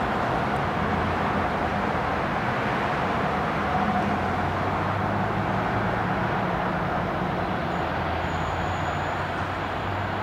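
Locomotive at the head of a train, standing or moving very slowly, giving a steady low drone.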